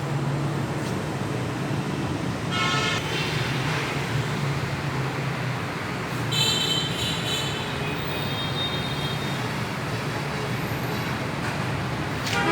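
Wood-sawing machine running with a steady low hum, with a brief high whine about two and a half seconds in and a longer one from about six to eight and a half seconds in.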